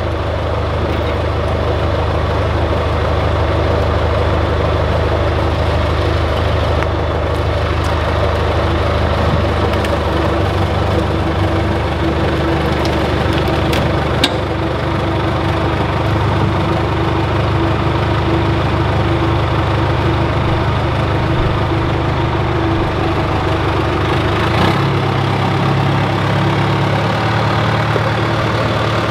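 John Deere backhoe loader's diesel engine running steadily, its pitch shifting about a third of the way in and again near the end. A single sharp click comes about halfway through.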